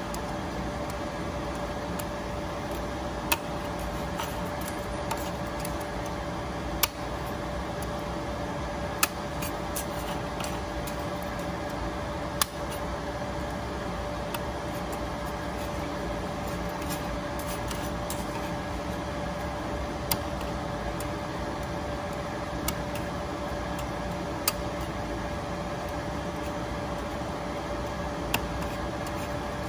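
CNC cutting machine running through a cut: a steady hum with a constant mid-pitched tone, and sharp clicks at irregular moments, about eight in all.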